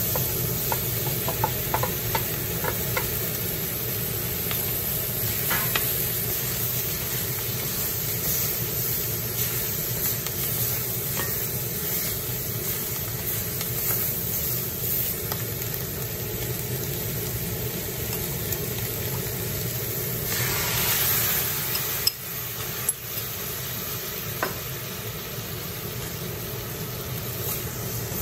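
Pork, onion and whole small green peppers stir-frying in an iron wok: steady sizzling, with a wooden spatula scraping and tapping the pan and a few clicks in the first seconds. About two-thirds through, the sizzle briefly grows louder, then a sharp knock.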